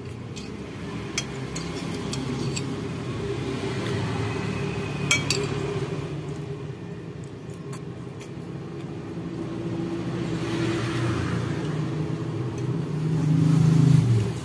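A metal spoon clinks against a ceramic bowl several times while someone eats, the sharpest clink about five seconds in. Under it runs a steady low engine rumble of passing traffic that swells near the end.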